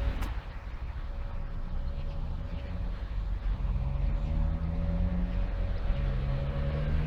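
Road traffic passing. Engines rumble low, and vehicles can be heard accelerating, their pitch rising over the second half.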